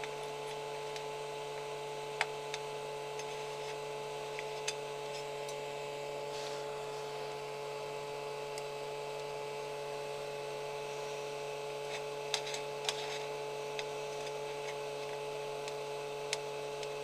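Steady electrical hum of several constant tones from bench equipment, with a handful of faint clicks and taps from small tools as the replacement LED is tested.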